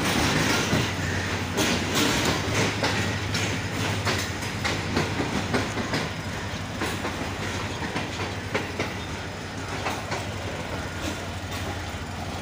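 Pakistan Railways passenger coaches rolling along a station platform, their wheels clicking over the rail joints over a steady low hum. The sound gets somewhat quieter in the second half.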